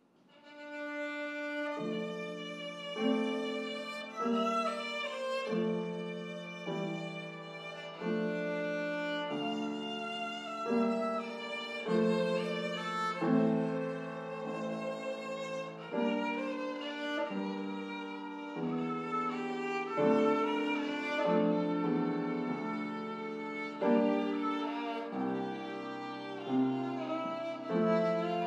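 Violin and upright piano playing a slow classical piece together, starting a moment in. The piano's low chords change about every one to two seconds beneath the violin's melody.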